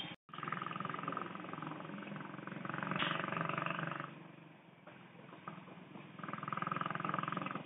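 Motorcycle engine running steadily under a rider on the move, heard from on the bike. It drops back for a couple of seconds about halfway through, then picks up again.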